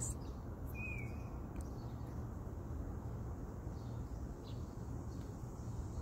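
Outdoor ambience: a steady low rumble with a single short bird chirp about a second in, over a faint high insect hiss.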